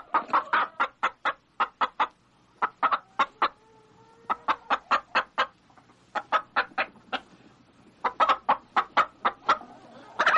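Hen clucking in quick runs of short clucks, about four a second, with brief pauses between the runs.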